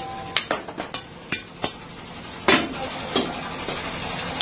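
Aluminium kadhai bowls clanking against each other and against the worker's metal rod as they are lifted and stacked: a string of about eight sharp metallic knocks, the loudest about two and a half seconds in.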